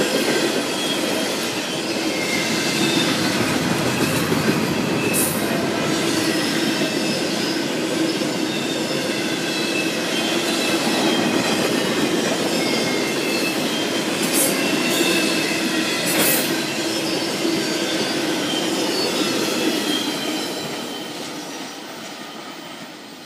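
Empty freight flatcars rolling past on the rails: a steady rumble and rattle of steel wheels on track, with faint high squealing from the wheels. The sound fades away near the end as the train recedes.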